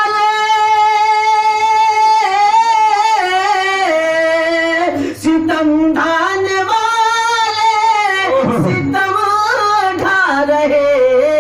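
A man singing a naat, a devotional Urdu poem in praise of the Prophet, into a microphone. He draws out the syllables in long held notes that waver and slide in pitch, with a short breath break about five seconds in.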